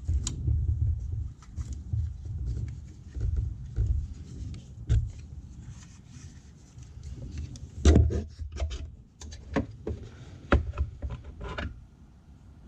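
Hands working plastic wiring connectors off the turn-signal bulb sockets behind the bumper: rubbing and bumping with scattered sharp plastic clicks, the loudest about eight seconds in and several more soon after.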